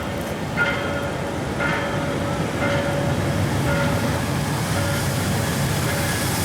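Diesel train running with a steady low rumble, over which a short beeping tone repeats about once a second.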